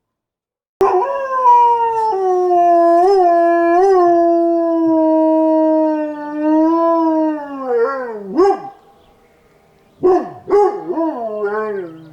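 Chihuahua howling: one long howl of about seven seconds that wavers twice and slides down at its end, then after a short pause a run of short rising-and-falling howls.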